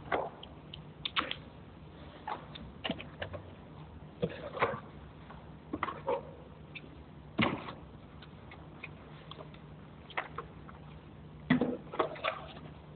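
Cardboard box being opened and its cardboard packing inserts handled: irregular short scrapes, rustles and knocks, with a quick cluster near the end.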